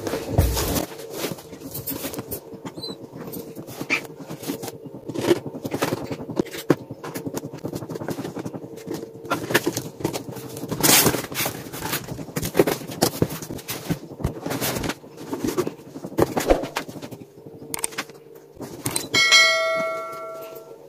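Cardboard helmet box and packaging being opened and handled, with irregular crackling, rustling and knocks. Near the end comes a short ringing ding, a notification-bell sound effect.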